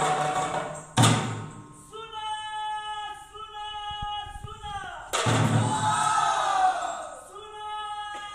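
Live theatre music: a loud drum strike about a second in and another about five seconds in, each followed by a voice singing long held notes that bend and waver.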